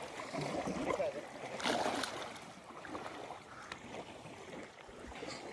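Faint, indistinct voices over a steady outdoor background hiss, with a brief louder rustle about two seconds in.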